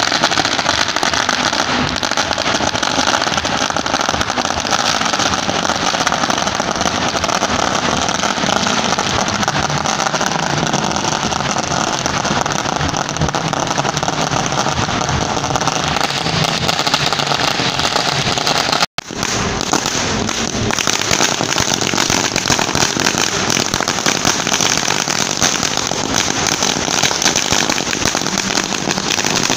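A 5000-wala laar, a long string of thousands of small chilli firecrackers, going off in a continuous rapid crackle of pops. The sound drops out for an instant about two-thirds of the way through, then the crackling carries on.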